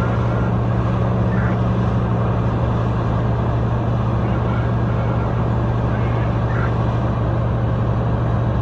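Cat 6015 mining excavator's diesel engine running steadily under load, a loud, unchanging low drone.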